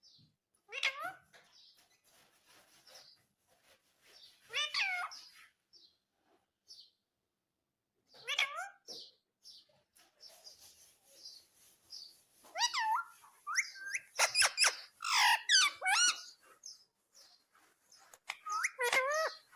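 Indian ringneck parrot calling and chattering in short bursts of gliding, warbling notes. The calls come a few seconds apart at first, then run in a busier stretch from about twelve seconds in.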